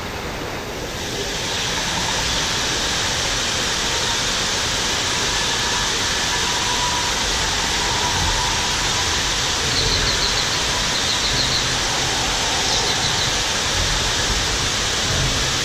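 Steady rushing noise like falling water, growing slightly louder about a second in, with three short trills of faint high chirps about ten to thirteen seconds in.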